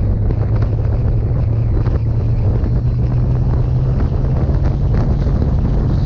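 Motorcycle riding at road speed: heavy wind buffeting the camera microphone over a steady engine drone. The engine note rises a little about two and a half seconds in and eases back about a second and a half later.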